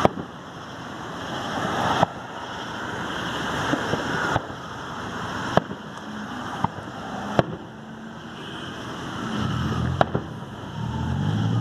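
Distant fireworks display: about seven sharp aerial shell bangs, a second or two apart, over a steady rushing noise. Near the end a car engine runs low underneath.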